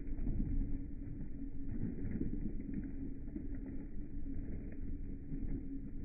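Automatic washing machine running, a steady hum over a low rumble.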